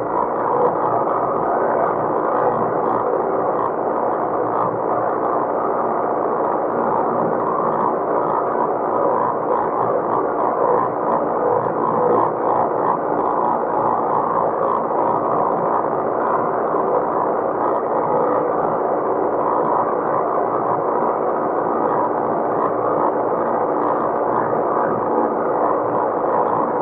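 Tractor engine running steadily while pulling a round baler through the hay field.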